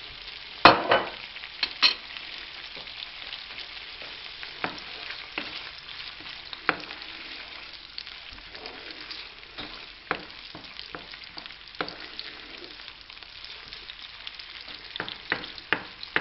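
Diced ham and onion sizzling in fat in a frying pan, stirred with a wooden spoon that knocks and scrapes against the pan now and then. The loudest knocks come about a second in.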